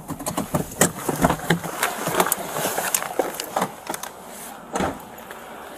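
Handling noise from a chest-worn Axon Body 3 camera as an officer climbs out of a patrol car: irregular knocks, clicks and clothing rustle, with the car door opening.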